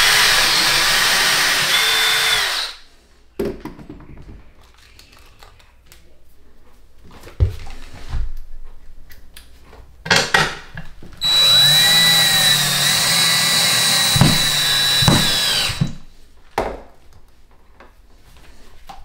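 Cordless DeWalt drill/driver run twice at a metal shelf bracket on the wall, each run lasting about four seconds, with the motor's pitch dipping briefly toward the end of the second run as it takes load. A few knocks and clicks of the tool being handled fall in between.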